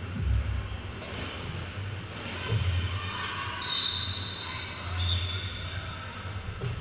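Roller derby skates rolling on a sports hall floor, a low rumble that swells and fades as the pack passes, over background voices, with a short high whistle tone about three and a half seconds in.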